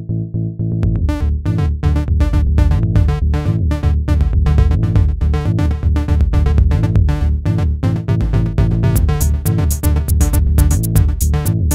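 Electronic dance music: a synth bass line with a steady drum-machine beat that comes in about a second in.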